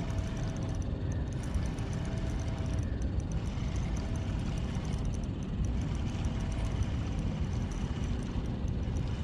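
Steady low rumbling background noise with no distinct events, plus a faint fine ticking high up.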